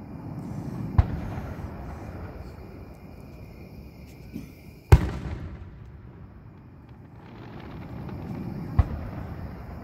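Aerial firework shells bursting: three sharp bangs a few seconds apart, the middle one the loudest with a smaller pop just before it, over low rumbling.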